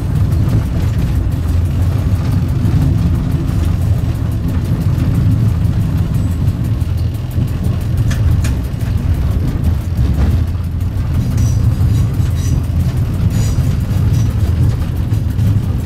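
Steady low rumble of a diesel train running along the track, heard from inside the driver's cab, with a couple of short clicks about eight and ten seconds in.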